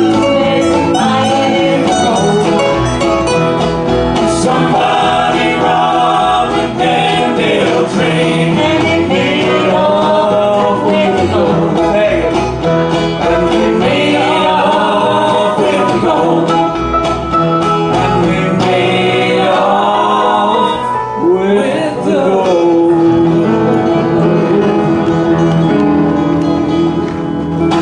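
Live acoustic folk band playing: strummed acoustic guitars with several voices singing together, holding a long note in the last few seconds.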